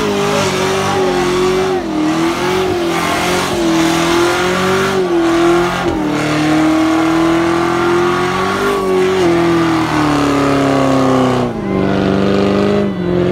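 Car engine held at high revs during a burnout, its note wavering slightly, over the hiss and screech of spinning tyres. Near the end the revs drop and the note falls to a lower steady pitch.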